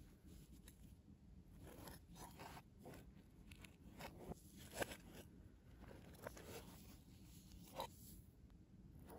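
Faint rustles, scrapes and light taps of cardboard packaging handled with cloth gloves: the Apple Watch's white box sliding against its brown cardboard tray. A few short crackles, the loudest about five seconds in and again near the end.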